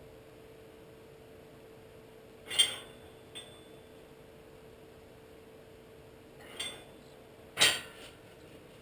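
Four sharp metallic clinks, a few seconds apart, of metal tools or parts being handled, over a faint steady hum.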